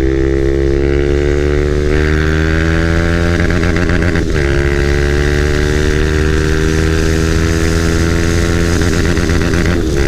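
KTM 390 Duke's single-cylinder engine running loud through an aftermarket full-system exhaust under hard acceleration at road speed. The pitch climbs steadily, with brief breaks about four seconds in and near the end.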